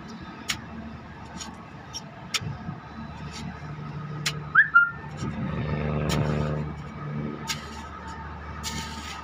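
Motor vehicle engine and road noise, a steady low hum broken by scattered clicks and rattles. There is a short high squeak about four and a half seconds in, and the engine note swells for a couple of seconds just after the middle.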